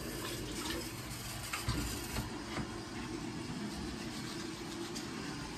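Teeth being brushed with a toothbrush, faint scrubbing over a steady low hum.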